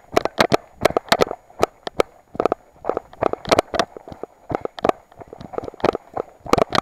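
Running footsteps crunching on a loose, stony dirt trail: quick, uneven strikes, several a second.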